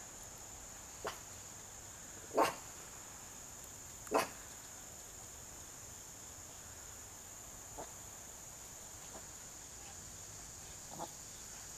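A dog barking a few short times, the two loudest barks about two and a half and four seconds in, over a steady high-pitched insect chorus.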